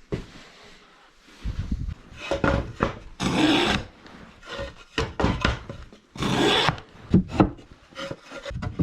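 Wood being worked by hand: uneven scraping and rubbing strokes with short pauses between them. The two longest and loudest strokes come about three and six seconds in.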